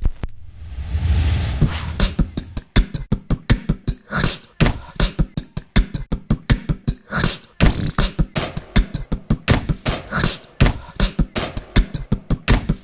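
A man beatboxing: a quick, dense beat of mouth-made kick, snare and hi-hat sounds, opening with a breathy swell over a low hum for about the first two seconds.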